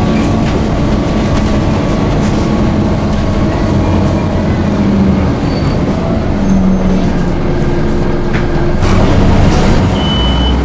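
Inside a Scania OmniCity bus on the move: a steady engine and road rumble whose pitch shifts a little as the bus speeds up and slows, with scattered clicks and rattles from the body and fittings.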